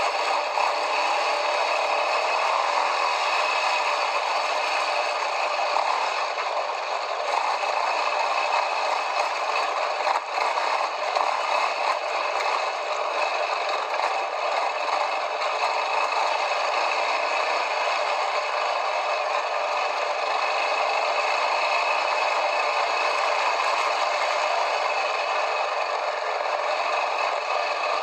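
Quad bike riding over rough ground: a steady rattling and clattering noise with no pauses.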